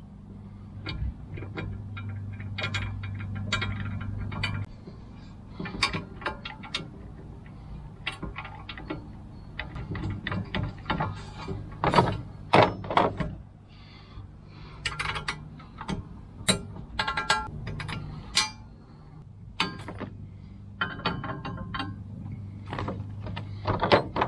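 Irregular metallic clinks, clicks and knocks as metal rack parts and bolts are handled and fitted together during assembly, over a steady low hum.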